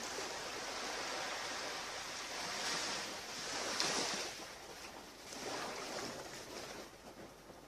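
Ocean surf washing onto a beach: a steady rush of waves that swells about three seconds in and again around six seconds, then fades.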